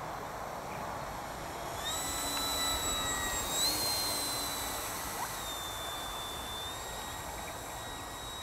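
E-flite Turbo Timber Evolution RC plane's electric motor and propeller whining as it flies overhead. The whine comes in about two seconds in, rises a little in pitch a second and a half later, then falls away in two steps as the plane passes.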